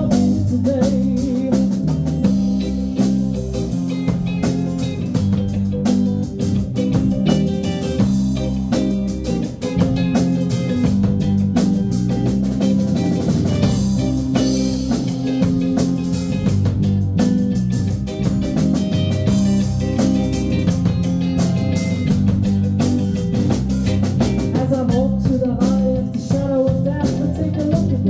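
Live band playing a rock-styled song: strummed acoustic guitar, electric guitar and drum kit keeping a steady beat.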